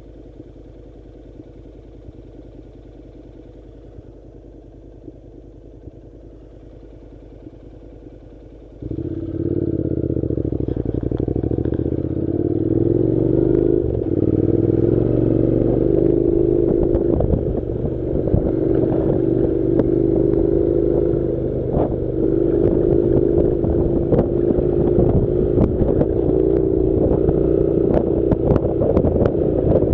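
Honda NC700's parallel-twin engine idling quietly. About nine seconds in the bike pulls away, picks up speed and runs on at a steady pace, with loose stones clattering under the tyres on the dirt road.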